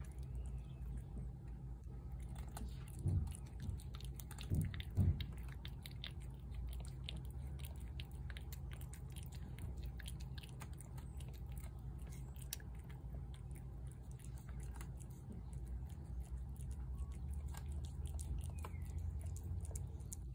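A feral tabby cat chewing wet food from a plate close by: a steady run of small wet clicks and smacks. A few dull thumps stand out about three and five seconds in.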